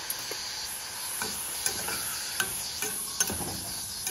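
Chopped maxixe sizzling in a pan of hot oil and a splash of water, a steady hiss. A utensil clicks against the pan a few times as the vegetables are stirred.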